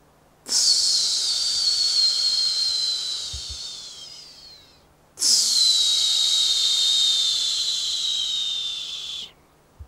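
Two long, breathy hisses, each about four seconds, with a whistling tone that falls slowly in pitch through each one. The first fades out and the second cuts off suddenly.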